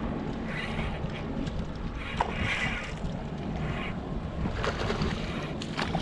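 Wind buffeting the microphone and choppy water lapping around a small open boat, with a few short, sharp splashing sounds near the end.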